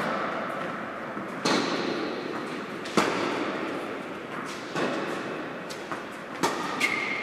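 Tennis rally on an indoor hard court: the ball is struck by rackets and bounces, giving sharp pops about every one and a half seconds that echo in the large hall. A steady high tone starts near the end.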